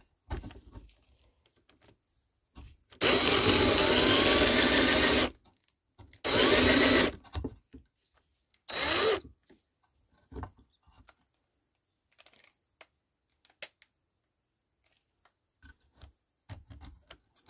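Black & Decker 20V cordless drill driving a 40 mm metal hole saw into a wooden board in three bursts: about two seconds, then about a second, then a brief blip, with quiet pauses between.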